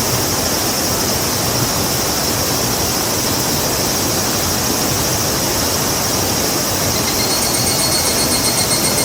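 Tropical river rushing steadily, an even full noise. About seven seconds in, a high, rapidly pulsing call joins it.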